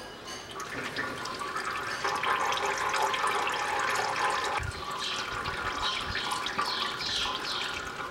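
Excess gear oil running out of a manual gearbox's fill hole in a thin stream, a steady liquid trickle. The gearbox has been filled until oil overflows at the filler plug, the sign that it is full.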